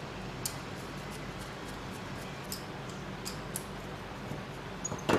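Light metallic clicks from pliers and a hex driver as lock nuts are tightened onto screws through a quadcopter frame's metal arm blocks: a few faint scattered ticks, then a louder clatter of clicks near the end.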